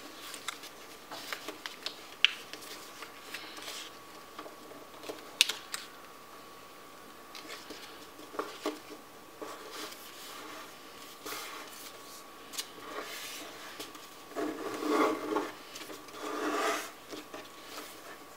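A sheet of paper being folded and creased by hand on a tabletop: scattered crinkles and a couple of sharp taps, then two longer rubbing sounds near the end as fingers press a fold flat. A faint steady high hum runs underneath.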